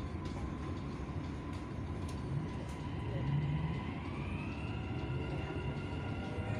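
Dubai Metro train pulling away from a station with a steady low rumble. From about four seconds in, the traction motors' whine rises in pitch as the train gathers speed.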